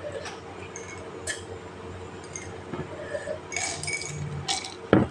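Dishes and glassware clinking lightly on a dining table as food is picked from the plates, a few scattered short ticks, with one louder knock just before the end.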